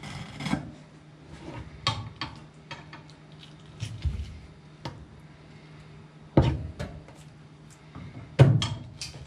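Kitchen knife knocking and scraping on a wooden cutting board as a conger eel is split open, a scatter of sharp knocks with the two loudest about six and eight seconds in, over a low steady hum.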